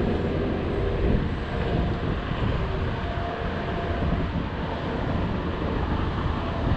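Wind buffeting the microphone: a steady low rumble of noise with no distinct events.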